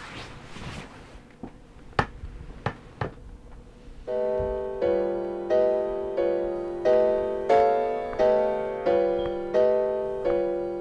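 Film score on piano: a chord struck over and over, about one and a half strikes a second, starting about four seconds in. Before it, a few sharp clicks over faint room noise.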